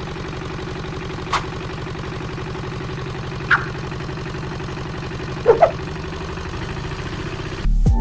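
Engine idling steadily with a fast, even pulse, broken by a few light clicks. Near the end it gives way to piano music.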